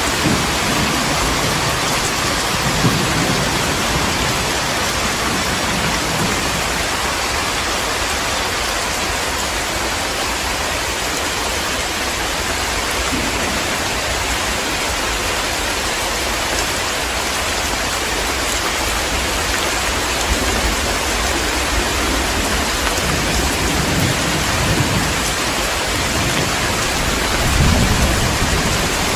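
Heavy, steady rain with thunder rumbling low, briefly at the start and more strongly near the end.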